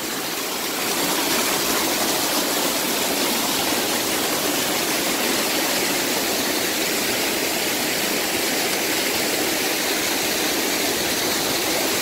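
Waterfall crashing onto boulders at close range at its foot: a steady, almost deafening rush of falling water.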